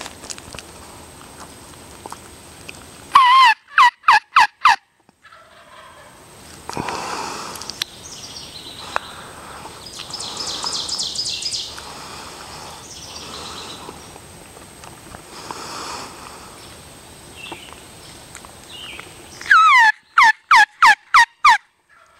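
Wild turkey tom gobbling twice, each gobble a quick rattling run of falling notes lasting about a second and a half, the second coming some sixteen seconds after the first. Smaller birds call and trill between the gobbles.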